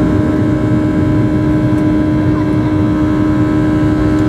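Boeing 737-800's CFM56-7B jet engines at takeoff thrust, heard from inside the cabin over the wing: a loud, steady roar with a strong steady hum and several steady higher tones above it, as the jet rotates and lifts off the runway.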